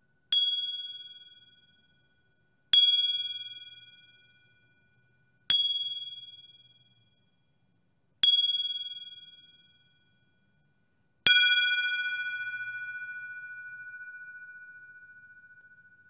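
A small Tibetan bell struck five times, about every two and a half to three seconds; each strike is a bright ding that rings and fades away. The fifth strike is the loudest and rings on for several seconds. A faint steady tone at the bell's pitch hangs on between strikes.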